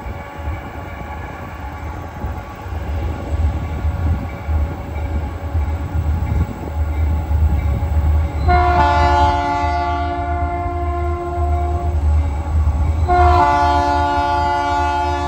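Air horn of an approaching Indiana & Ohio Railway locomotive, sounding several notes at once: one long blast about halfway through and a second long blast starting near the end, over a low rumble.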